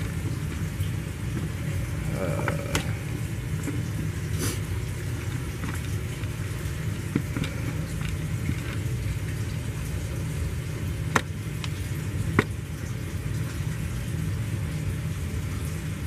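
Metal battery clips being handled and fitted onto a car battery terminal: a few short sharp clicks and knocks, the loudest two close together about 11 and 12 seconds in, over a steady low rumble.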